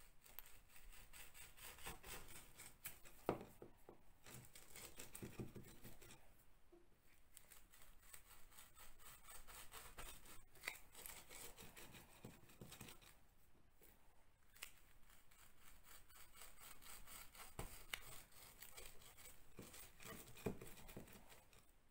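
A thin hand-held bit twisted into lath-and-plaster, scraping and grinding faintly in many quick repeated strokes as it bores small holes along a crack.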